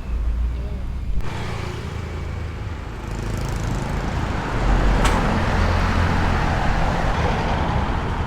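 A running vehicle: a steady low rumble with rushing noise that grows louder about halfway through, and one sharp click near the middle.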